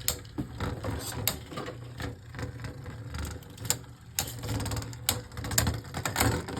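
Beyblade Burst spinning top running in a plastic stadium: a steady low hum with irregular clicks and clacks throughout.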